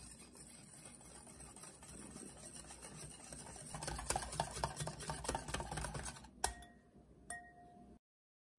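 Wire balloon whisk stirring a thick mixture of fresh cream, yogurt powder and cornstarch in a glass bowl: quick scraping and clicking of the wires against the glass, getting louder about halfway through. Near the end come two ringing taps of the whisk on the bowl.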